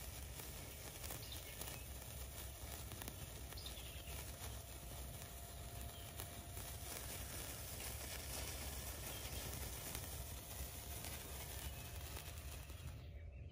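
Sunwing Happy Hour sparkler burning with a steady fizzing hiss full of fine crackles. The hiss stops abruptly near the end.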